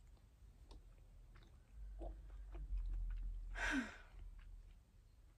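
A person chewing a mouthful of orange segments, with small wet mouth clicks. About three and a half seconds in comes one short, louder breathy vocal sound whose pitch falls.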